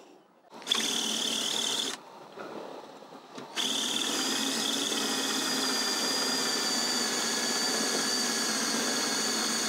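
Cordless drill running against an aluminium headsail furler foil: a short run about a second in, then, after a pause, a long steady run with an even motor whine, drilling into the foil.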